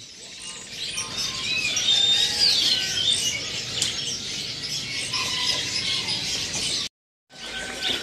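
Caged canaries chirping and singing, several birds at once in short whistled phrases and twitters; the sound cuts out for a moment near the end.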